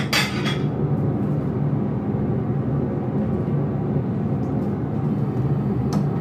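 Steady low mechanical hum. In the first half-second there are a few sharp clinks as peeled garlic cloves land in a steel karahi.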